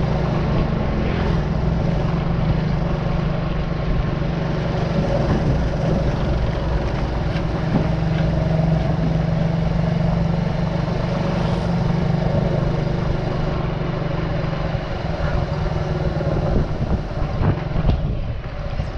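Small motorbike engine running steadily while riding, heard close up from the handlebars, over wind and road noise. The engine note weakens about fourteen seconds in as the bike slows.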